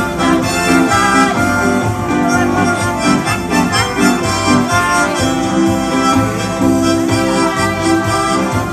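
Live band playing an instrumental break of a folk tune: a harmonica played into a microphone carries the melody in held notes with a few bends, over acoustic guitar and keyboard.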